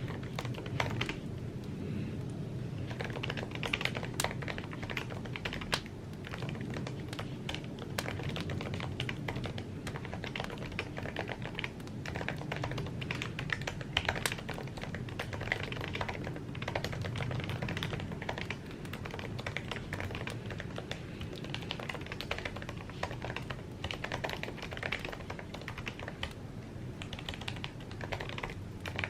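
Continuous typing on an Apple keyboard: quick, irregular key clicks throughout, over a steady low background rumble.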